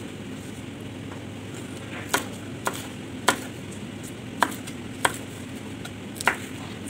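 Chef's knife cutting green beans on a plastic cutting board: about six sharp, unevenly spaced knocks of the blade striking the board, starting about two seconds in, over a steady low hiss.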